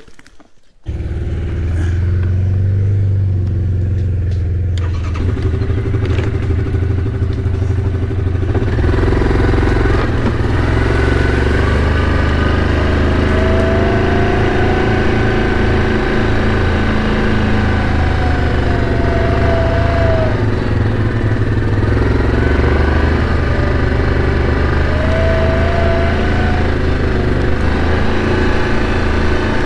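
Yamaha Kodiak ATV's single-cylinder engine running steadily under way on a dirt trail, cutting in abruptly about a second in. A higher whine rises and falls briefly three times.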